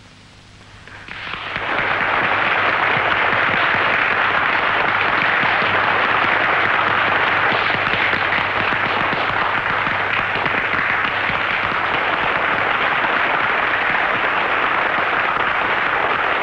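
An audience applauding: dense clapping swells in about a second in, then holds steady and loud.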